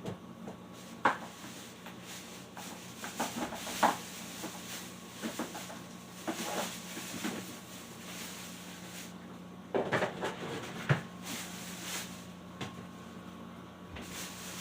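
Scattered knocks and clunks of household objects being handled, with sharper knocks about a second in, near four seconds and near eleven seconds and a burst of clatter just before that, over a steady low hum.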